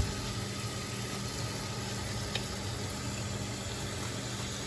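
Steady even hiss with a low hum underneath, unchanging throughout.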